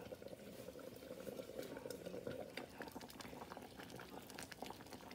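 Pots of food simmering on an electric stovetop, including chicken flour meatballs in sauce: a faint, steady bubbling with small ticks and pops.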